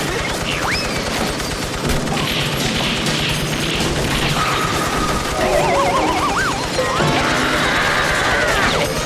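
A dense, unbroken barrage of cartoon sound effects: rapid crashing and banging, with whistle-like pitch glides. A steady tone comes in about four seconds in, a wobbling, warbling pitch follows around the middle, and a long sliding tone comes near the end.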